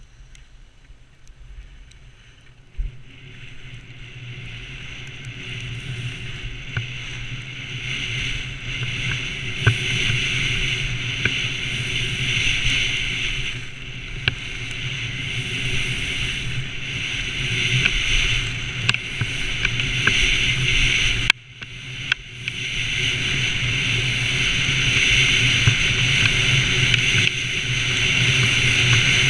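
Skis sliding and scraping on groomed snow under the rush of wind on the microphone during a fast downhill ski run, growing louder as speed builds, with small clicks and a brief sudden drop about three-quarters of the way through.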